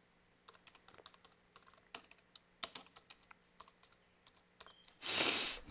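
Computer keyboard typing: faint, irregular key clicks. A short, louder hiss of an in-breath comes near the end.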